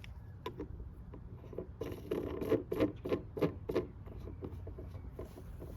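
Float valve fitting being fastened through the wall of a plastic stock tank: a nut threaded onto the fitting, heard as a few clicks and then a quick run of about eight rubbing, scraping strokes in the middle.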